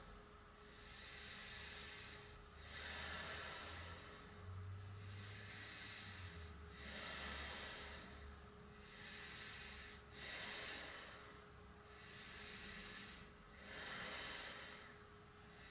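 A person breathing deeply and audibly while holding a yoga posture: slow, even inhales and exhales that swell and fade in a regular rhythm, about one full breath every three to four seconds.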